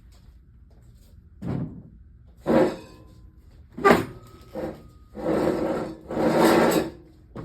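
Hands working on the pottery wheel: four short knocks and scrapes, then two longer scraping rubs of about a second each near the end.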